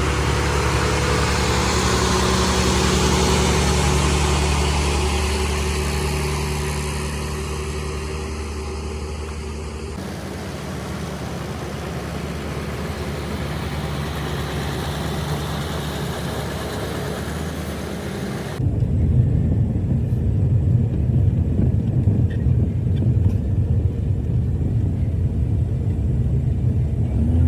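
An engine running steadily with a low hum. The sound changes abruptly about ten seconds in and again near the end, becoming louder and rougher.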